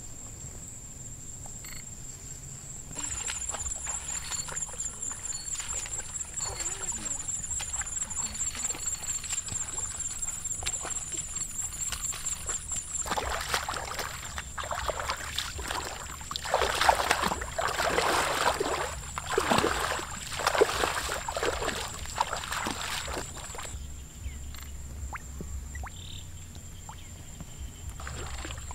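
Feet wading and splashing through shallow water in a series of surges, loudest in the middle. Over it runs a steady high-pitched insect trill.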